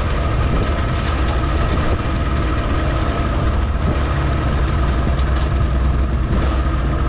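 Small boat's 40 hp outboard motor running steadily under way, a constant drone with a steady high whine over it.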